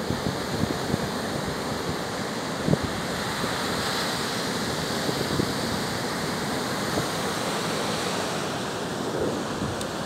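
Stormy sea surf breaking and washing up a sandy beach, a steady rushing noise, with gusts of wind buffeting the microphone.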